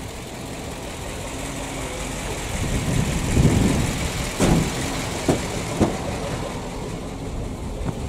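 The PAZ-672 bus's V8 petrol engine running steadily, without the knock it used to have. The engine swells briefly about three seconds in, and a few short sharp clunks follow over the next couple of seconds.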